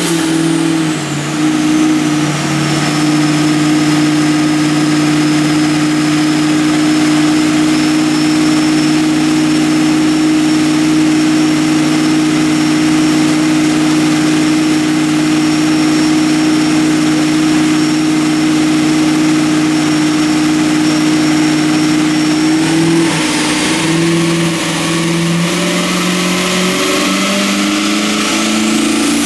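Turbocharged 6.0 L LS2 V8 in a Holden HQ one-tonner running on a chassis dyno. It is held at a steady engine speed for about twenty seconds, then the revs drop and waver before climbing again near the end. A thin high whine rides above the engine note and follows the revs.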